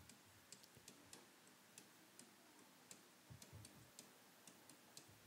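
Near silence with faint, irregular ticks of a pen tip tapping and sliding on the glass of an interactive writing board as words are handwritten.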